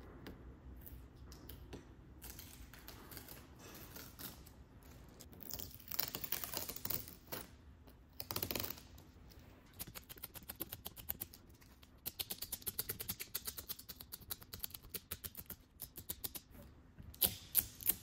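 Quick, faint scratchy rubbing strokes of a hand working a small pad over the face of a flexible solar panel, coming in fast regular runs of several strokes a second after a few slower scrapes, with a few louder strokes near the end.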